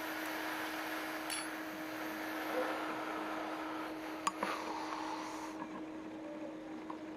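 A glass cap set down onto a glass piece with a single sharp glass-on-glass clink about four seconds in. Under it is a steady low hum and hiss; a fainter click comes a little over a second in, and the hiss drops away near the end.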